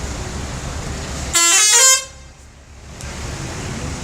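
Musical 'telolet' bus horn playing one short burst of quickly changing notes, about half a second long, starting about a second and a half in, over a steady low rumble of engines.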